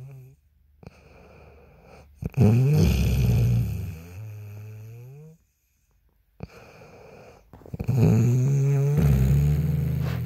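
A woman snoring: two long, pitched snores about five and a half seconds apart, each starting loud and tailing off.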